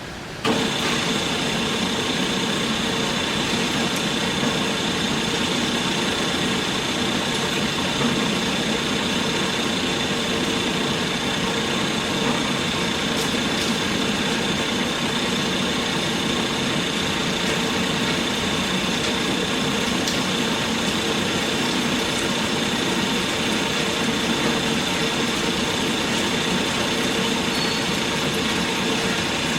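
Kalamazoo 13AW horizontal band saw switched on about half a second in, its motor and blade then running steadily with a constant high whine.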